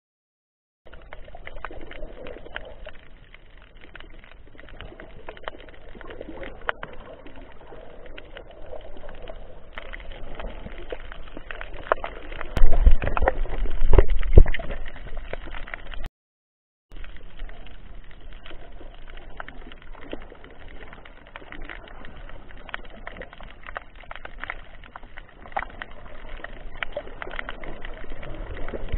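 Underwater sound picked up by a camera beneath the surface: a steady wash of water noise with scattered faint clicks, growing into a louder low rumble around the middle.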